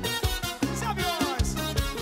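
Live band playing an instrumental break, with a brass section of trombones, trumpet and saxophone over drums and bass. A falling slide is heard about halfway through.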